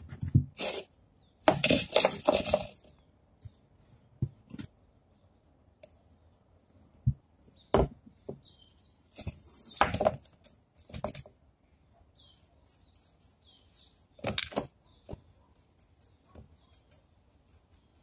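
Scattered clinks and taps of steel scissors being handled on a concrete floor while a paintbrush is dipped into a plastic tub of paint stripper and dabbed onto them, with two short scraping rustles about 2 s and 10 s in.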